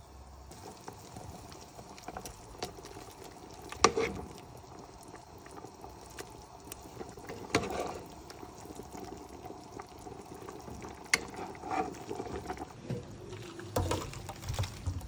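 Liquid bubbling in a cooking pot, with several sharp knocks of kitchen utensils against cookware.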